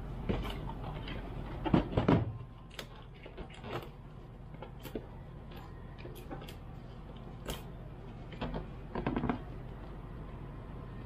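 A long cardboard box being handled and set down on a tiled floor: scattered knocks, scrapes and rustles of the cardboard, loudest about two seconds in. Another cluster of rustling clicks comes near the end as the packing tape on the box is picked at.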